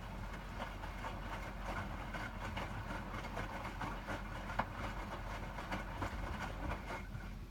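Hotpoint WMFUG 942 washing machine running, a steady low motor hum under frequent irregular clicks and knocks as the drum turns the load.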